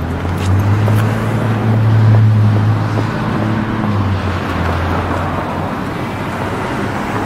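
Road traffic: a car engine running with a steady low hum, loudest in the first half, over the tyre and road noise of cars driving past.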